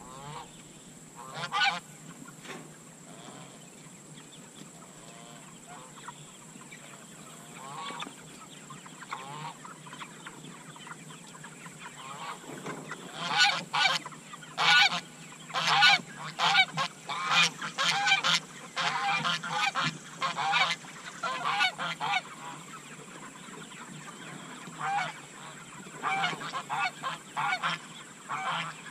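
Domestic geese honking: a few scattered calls at first, then a long flurry of repeated honks through the middle and another shorter run near the end.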